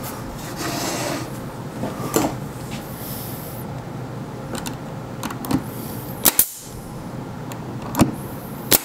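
Pneumatic brad nailer shooting brads into cedar boards: sharp shots, a quick pair past the middle, a single shot, then another pair near the end. Fainter clicks and tool handling come before them.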